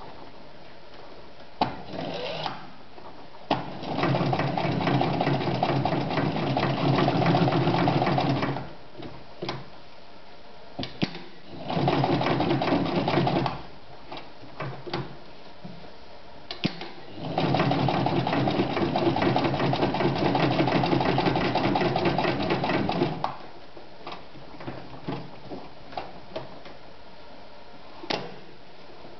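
Meister 110 sewing machine stitching through leather, running at a steady speed in three runs, the middle one short, with small clicks and knocks of handling in the pauses between.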